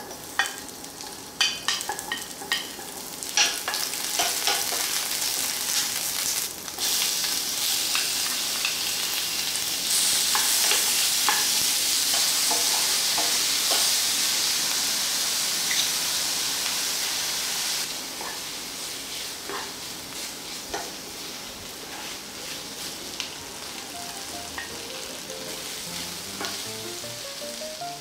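Onion and squid stir-frying over high heat in a frying pan: steady sizzling with the clack and scrape of a wooden spatula. The sizzle grows loud about a quarter of the way in, and eases off for roughly the last ten seconds as the seasoning coats the pieces.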